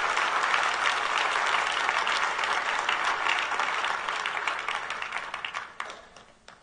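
Congregation applauding. Near the end the clapping thins to scattered claps and dies away.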